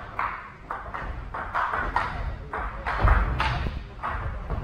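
Table tennis rally: the ball clicking back and forth off the rackets and the table, about two hits a second.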